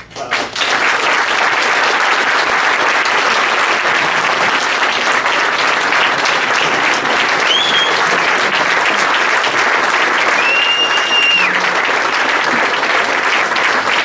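Audience applauding, the clapping starting about half a second in and holding steady, with two short high whistles partway through.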